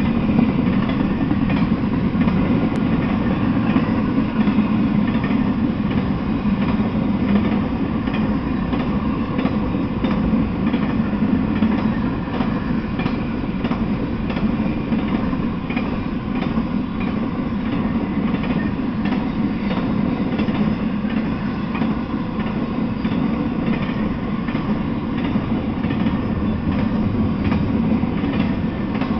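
Intermodal freight train of container and trailer cars rolling past: a steady rumble of steel wheels on the rails, with repeated clicks from the wheels.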